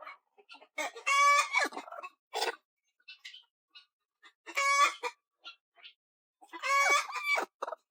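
Chickens calling: three loud, drawn-out calls a few seconds apart, with soft clucks between them.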